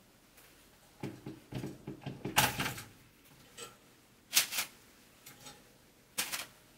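Kitchen handling noises as toast is taken from a pop-up toaster and laid on a paper-lined plate: a run of short knocks and clatters, then a couple of sharp rustles or clicks of the paper sheet.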